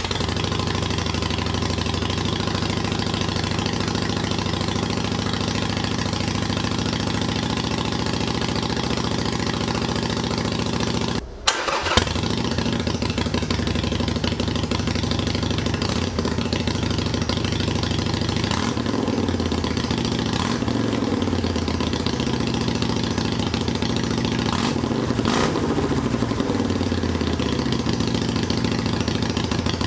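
Harley-Davidson Iron 883's V-twin running through new Vance & Hines Short Shots mufflers. It idles steadily, breaks off for about half a second some eleven seconds in, then runs on and is revved up and down a few times in the second half. Only one O2 sensor is fitted, and the owner hears one pipe running leaner than the other.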